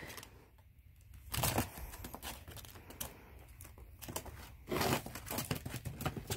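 Ferret pawing and digging into a metal pan of packed snow: irregular crunching and scratching, with louder scrapes about a second and a half in and again near five seconds.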